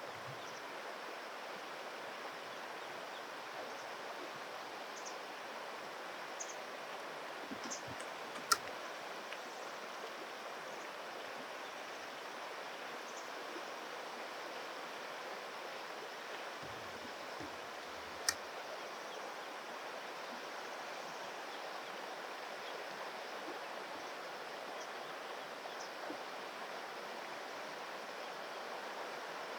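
Steady rush of flowing river water, with two short sharp clicks, one about a third of the way through and one about two-thirds through.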